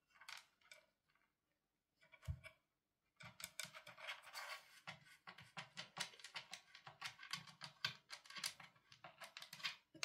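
Cat pawing and scrabbling inside a laser-cut wooden puzzle box: a quick run of scratching, scraping and clattering, nearly constant from about three seconds in, with one dull thump a little after two seconds.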